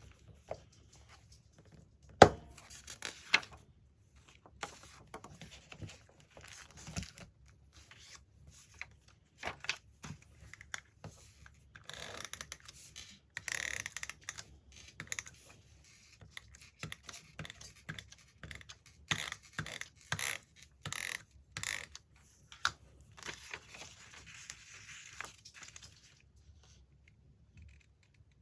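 Magazine paper being handled for scrapbooking: irregular rustling, crinkling and tearing of pages, with scattered small taps and clicks. A sharp click about two seconds in is the loudest.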